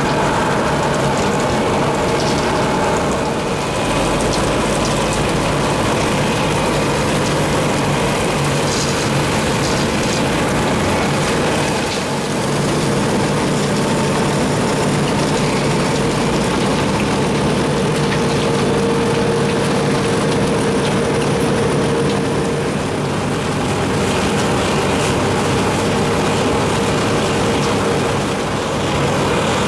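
Wirtgen W 100 Fi cold milling machine at work: its diesel engine running under load while the milling drum grinds up asphalt and the conveyor throws out the millings. It is a loud, steady mechanical din with a constant hum, dipping briefly a few times.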